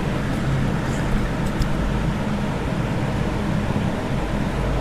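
Steady low hum and hiss of background noise, with a couple of faint ticks about a second in.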